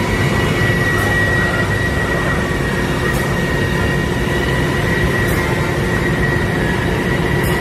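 Router spindle on a six-axis robotic trim router running as it trims a part, giving a steady high whine over loud, even machine noise.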